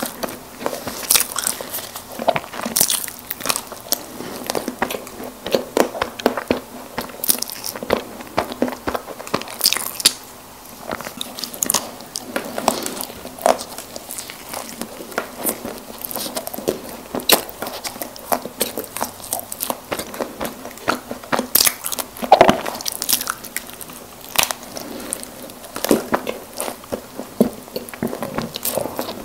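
Close-miked eating of soft snack cakes: steady chewing with many sharp, wet mouth clicks, briefly easing off about ten seconds in.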